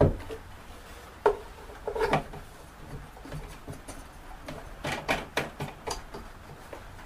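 Wooden knocks and clunks as a box-making jig is handled and fastened onto its bench turntable: a loud knock at the start, another just over a second in, a short clatter about two seconds in, then a run of smaller knocks around five to six seconds.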